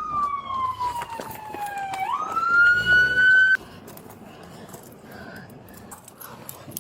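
Police car siren gliding down in pitch for about two seconds, then sweeping back up and holding high before cutting off suddenly about three and a half seconds in.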